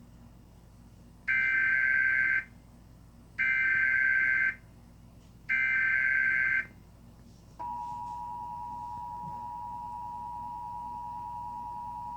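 Emergency Alert System (EAS) signal: three bursts of buzzing digital data-header tones, each about a second long with short gaps between them, announcing the start of an alert. Then, a little past halfway, the steady two-tone EAS attention signal comes on and holds.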